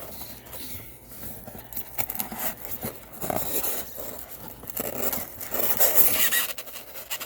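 Packaging being handled and unwrapped by hand: irregular rustling, crinkling and scraping, busiest about five to six and a half seconds in.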